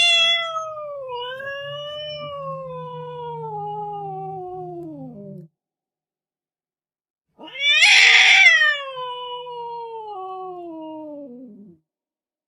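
A domestic cat yowling: two long, drawn-out calls, each lasting several seconds and sliding slowly down in pitch, with a silent pause of about two seconds between them.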